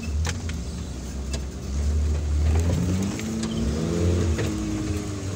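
Off-road 4x4 engine running with a deep, steady low rumble as it crawls a rough rocky track, with a few sharp knocks and clicks from the rough ground.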